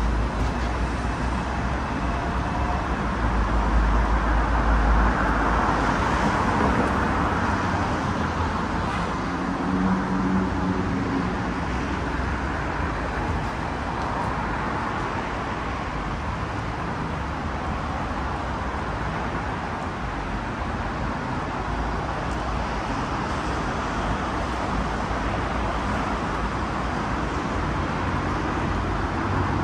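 Steady city street traffic: road vehicles running and passing, with a louder pass about four to seven seconds in.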